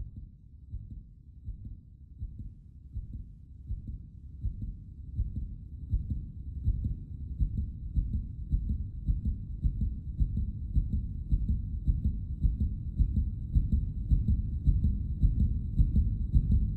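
Low, pulsing heartbeat sound effect that grows steadily louder, with a faint high thin tone held over it.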